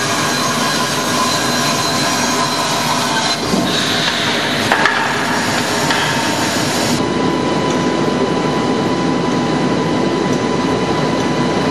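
CNC band saw running and cutting a solid-wood chair-back blank held in pneumatic clamps: a steady machine whir with a constant high hum, and a few short knocks around the middle.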